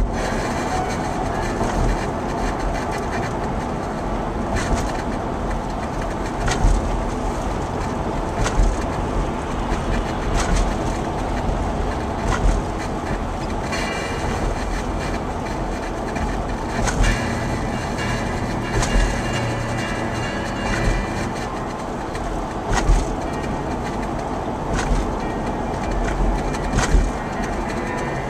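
Road noise heard inside a moving car on an elevated concrete viaduct, a steady rumble with a short thump about every two seconds as the tyres cross the deck joints.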